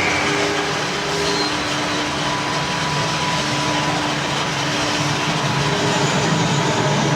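A steady, train-like mechanical rumble and hiss with a constant hum underneath, from the machine sound effect of a 1:10 remote-control monster vehicle model.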